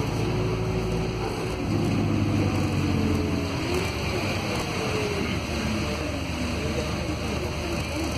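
Interior sound of a Volvo B5RH hybrid city bus under way: the steady low drone of its diesel-electric drivetrain with road noise, heard inside the passenger cabin. The low drone eases about three seconds in.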